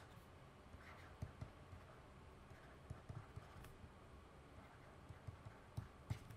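Near silence with faint scattered taps and scratches of a stylus writing on a tablet screen.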